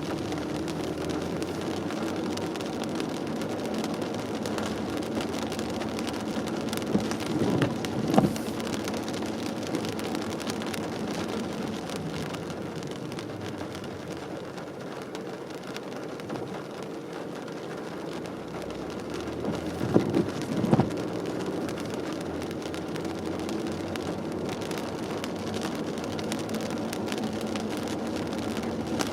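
Car driving on a wet road in the rain, heard from inside the cabin: a steady hiss of rain and wet tyres over a low, even running hum. Twice, about twelve seconds apart, comes a short cluster of knocks.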